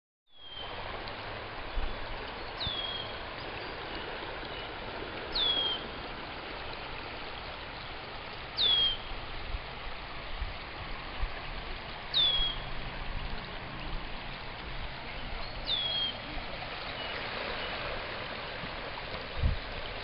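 Swollen river rushing past in a steady wash of water noise. A bird gives a short, high, downward-sliding call about every three seconds, and there are a couple of low thumps.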